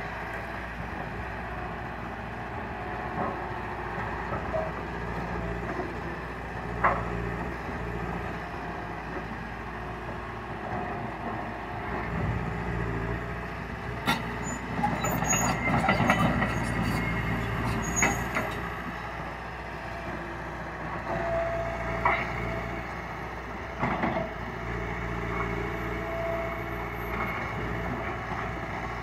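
Liebherr 936 crawler excavator's diesel engine running steadily while it digs, with sharp clanks and knocks of the bucket against rock. The knocks come most thickly around the middle.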